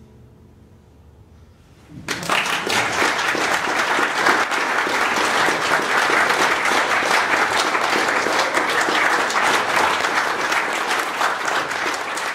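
A short hush, then an audience breaks into applause about two seconds in: dense, steady clapping.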